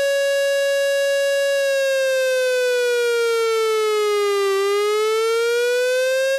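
Emergency alert siren tone, loud and buzzy: it holds steady, then about a second and a half in slowly falls in pitch for about three seconds, rises back up, and cuts off suddenly at the end.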